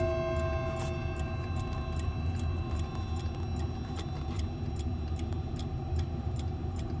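Howard Miller 612-437 clock movement ticking steadily, about three ticks a second. The ringing of a chime rod struck just before fades out over the first second, and a low steady rumble runs underneath.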